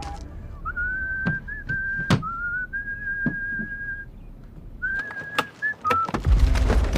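A person whistling a high held note that steps slightly up and down, stopping once in the middle and picking up again, with a few sharp taps in between.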